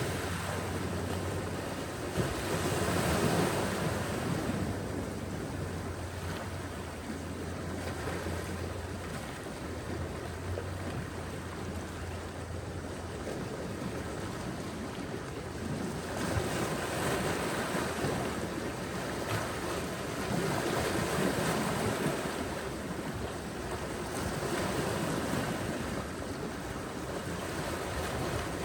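Ocean surf washing onto a beach: a steady rush of waves that swells and eases every several seconds, with the louder surges a few seconds in and again past the middle.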